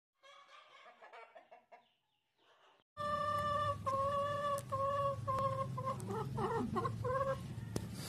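Chickens calling: faint calls for the first few seconds, then louder, a run of about seven drawn-out, even-pitched calls, each under a second, with a wavering call near the end, over a steady low hum.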